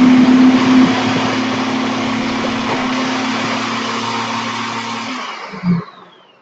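ThermoCook Pro's motor running its blade at speed, grinding a wet curry spice paste with a steady hum. About five seconds in the motor stops and the blade spins down with a falling whine, followed by a short thump.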